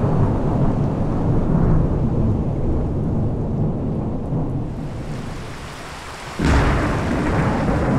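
Thunder from a lightning storm: a long low rumble that fades over several seconds, then a sudden sharp clap of thunder about six and a half seconds in that rolls on into a rumble.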